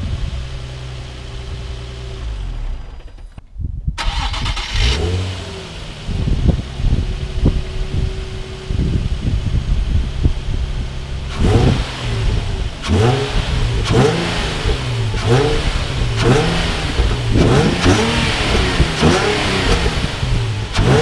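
Nissan 350Z's 3.5-litre V6 idling, with a brief cut to silence about three and a half seconds in. From about halfway it is revved in repeated quick throttle blips, a little more than one a second, each rising and falling.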